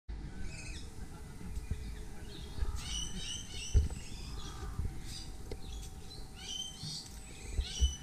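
Birds chirping: runs of short, quick high notes in two bouts, one about three seconds in and another near the end, over a low rumble. A few dull thumps stand out, the loudest just before halfway.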